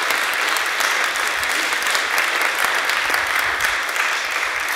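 Audience applauding steadily at the end of a poem, the clapping dying away just after.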